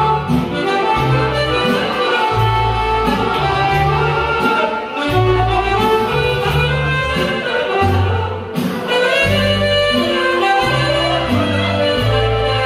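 Live band music: accordion and saxophone playing a tune together over a bass line that moves from note to note about once a second.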